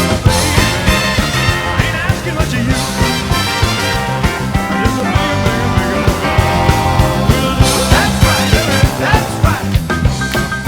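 Rock-and-roll band backing track, with a drum kit keeping a steady beat under electric guitar and a moving bass line.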